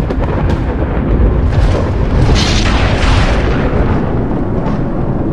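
Loud thunder rumbling steadily, with a sharper crash about two and a half seconds in.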